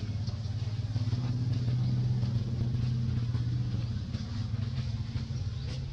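A motor vehicle's engine running steadily as a low hum, growing louder to about two seconds in and then slowly fading, as of a vehicle passing by.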